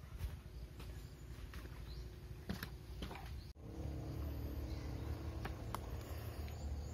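Outdoor ambience on a rocky seashore: a low rumble of wind on the microphone with a few short bird chirps and scattered light clicks. The sound breaks off sharply about three and a half seconds in and gives way to a steadier low hum.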